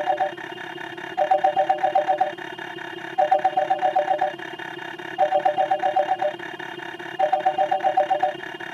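Telephone ring sound effect: four trilled rings about a second long, repeating about every two seconds, over a faint steady hum.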